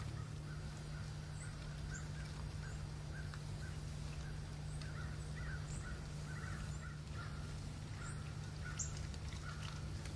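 Birds calling in the woods, many short calls repeated close together, thickest in the second half, with a few thin high chirps over a steady low hum.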